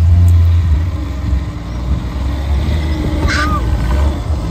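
An off-road buggy's engine running loud and low as the buggy climbs a dirt bank. A single short, high-pitched cry sounds about three seconds in.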